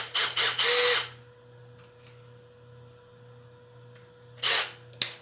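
Makita 18 V LXT brushless drill driver's motor whining in quick trigger pulls: several short spins in the first second, one held slightly longer, then one more short spin near the end.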